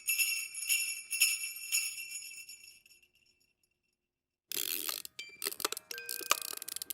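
Sleigh-style jingle bells shaken in strokes about twice a second, dying away by about three seconds in. After a short pause a separate crackling, rustling sound with scattered clicks and brief ringing tones begins.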